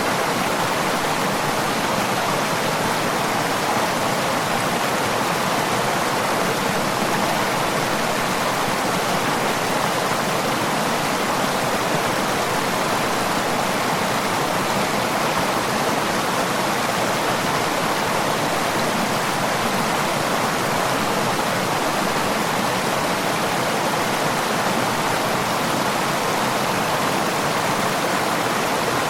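Running water flowing in a steady, unbroken rush, even in level throughout.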